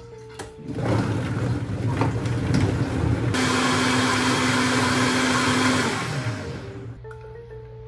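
Vitamix blender motor starting about a second in and blending a banana-and-greens smoothie. It jumps to a higher, louder speed about three seconds in, then winds down with a falling pitch near the end as the dial is turned back.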